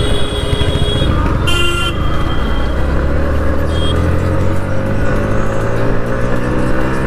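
Yamaha MT-15's 155 cc single-cylinder engine accelerating, its pitch climbing steadily through the second half as the bike picks up speed. Vehicle horns toot briefly in the first two seconds.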